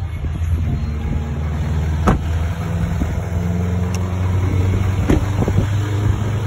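Chevrolet 3500 pickup truck's engine idling steadily, with a low, even hum. A couple of sharp knocks come at about two and five seconds in.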